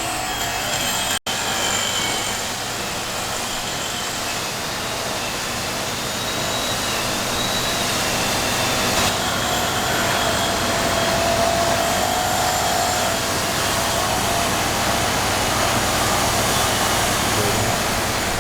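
Steady running noise of a woodworking power tool or shop machine, broken by a brief cut to silence about a second in.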